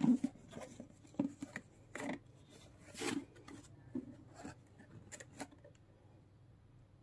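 Hands turning a glossy cardboard box over: scattered short rubs and scrapes of fingers and palms on the cardboard, about one a second, the loudest right at the start.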